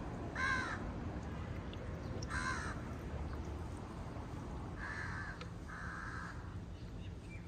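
A crow cawing: four short calls, the last two close together near the end.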